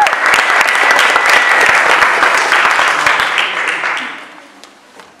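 Audience applauding and cheering, with a high held whistle near the start. The applause dies away about four seconds in.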